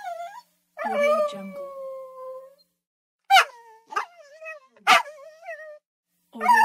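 Small dog howling: a series of howls, each starting with a sharp yelp and trailing off in a wavering, falling tone. The longest, about a second in, is held for nearly two seconds.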